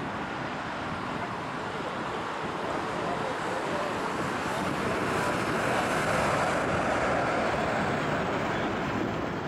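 Jet engines of a Boeing 767-300 rolling out after landing, a steady roar that builds to a peak about six seconds in and then eases off, typical of reverse thrust slowing the jet.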